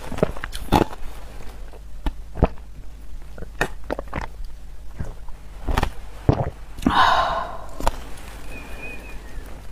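Close-miked mouth sounds of a person sipping and slurping slushy crushed ice through a straw and from the rim of a plastic container, with scattered small wet clicks. A longer rush of noise comes about seven seconds in.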